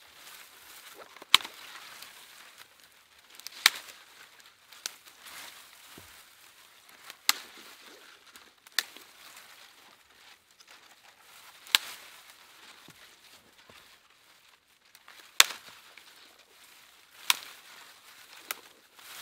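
Sharp chopping strokes of a blade on a long wooden pole as its branches are trimmed off: about nine knocks at irregular intervals of one to four seconds, with light rustling of twigs between them.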